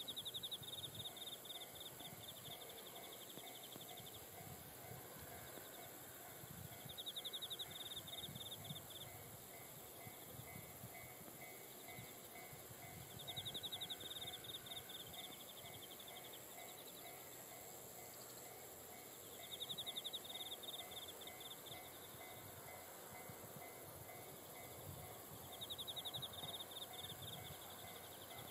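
Insects calling in the fields: one gives a rapid pulsed trill about two seconds long, repeated roughly every six seconds, over fainter steady insect ticking and a faint low rumble.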